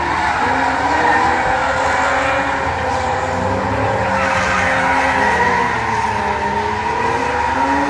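Two drift cars sliding sideways in tandem. Their engines rev up and down, their tyres squeal and screech, and the pitch wavers throughout.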